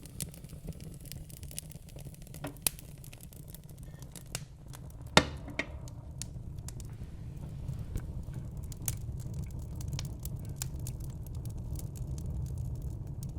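Wood burning in a fireplace: a steady low rumble of flames with scattered crackles and sharp pops, the loudest pop about five seconds in.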